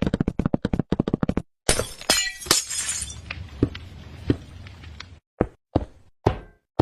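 Rapid tapping, then a loud crash with a clattering, glass-like shatter that dies away, followed by several separate sharp knocks.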